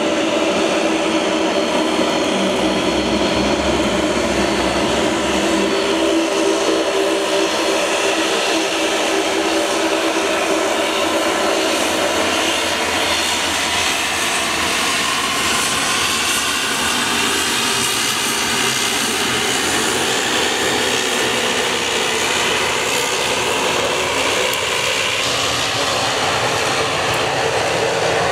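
Bombardier Dash 8-400 turboprop's two Pratt & Whitney PW150A engines and propellers running steadily at taxi power.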